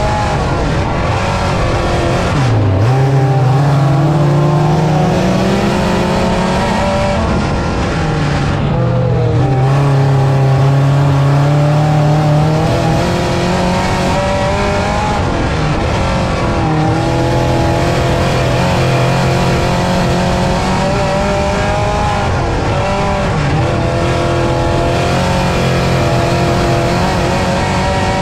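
Dirt-track race car engine running hard, its pitch rising and falling as it accelerates and backs off. The pitch drops sharply about two and a half seconds in and again near eight seconds, then climbs back up.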